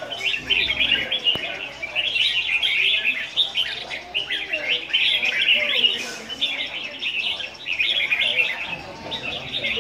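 Several caged red-whiskered bulbuls singing at once, a dense run of quick, overlapping chirped phrases with brief lulls.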